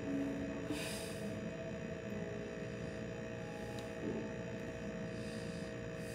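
A steady hum of a few held tones, with two brief soft hisses, one about a second in and one about five seconds in.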